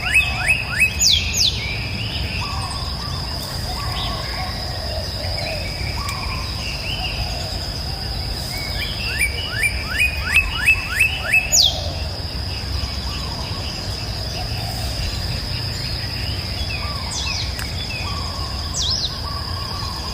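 Wild birds singing. One bird repeats a run of about eight quick rising notes twice, and other birds give sharp falling whistles. Beneath them runs a steady high-pitched insect drone and a low rumble.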